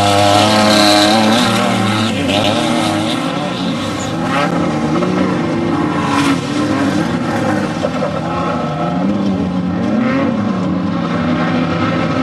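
Off-road race vehicle engines running hard, their pitch climbing and falling again and again.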